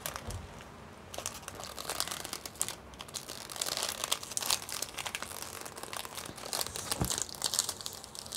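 Clear cellophane wrap on a small cardboard box crinkling and crackling as fingers work at peeling it off, starting about a second in.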